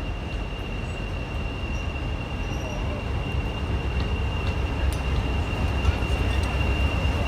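English Electric Class 40 diesel locomotive running slowly as it approaches. Its engine is a steady low rumble with one steady high whistle over it, both growing louder as it draws near.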